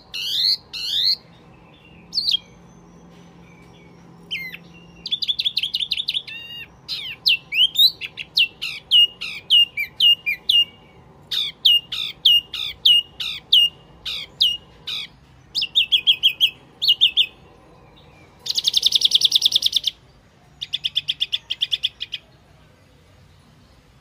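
Wambi mini bird-lure call: short phrases of rapid, high chirping notes, many sweeping down in pitch, separated by brief pauses, with one longer buzzy rattle near the end.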